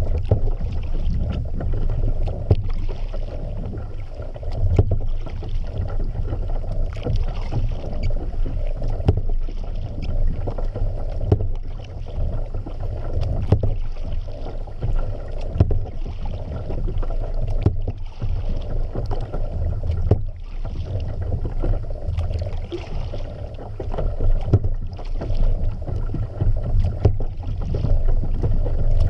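Kayak paddle strokes dipping and splashing about every two seconds, with small knocks, over a steady low rumble.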